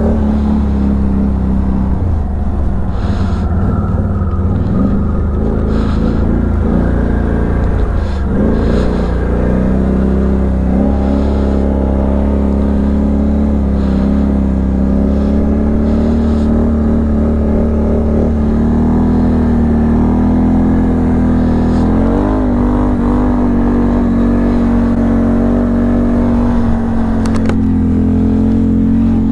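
ATV engine running steadily under load while riding on snow, its pitch dipping briefly about eight seconds in and lifting a little about twenty-two seconds in.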